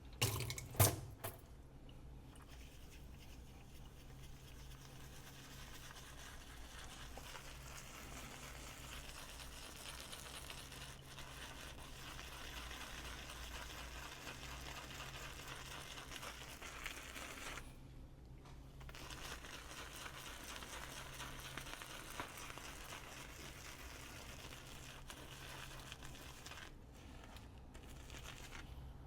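Shaving brush swirling wet shaving soap into lather: a steady wet brushing hiss that breaks off briefly about two-thirds of the way through. A couple of sharp knocks come about a second in.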